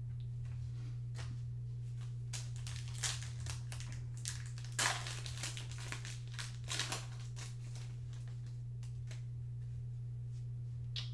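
A Panini Prizm football card pack being torn open by hand, its foil wrapper crinkling in scattered crackles, loudest about five seconds in. A steady low hum runs underneath.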